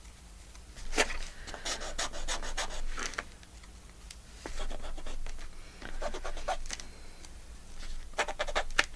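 Paper being handled and rubbed on a craft table: scratchy rustling that comes in short bursts every second or so, with quieter gaps between them.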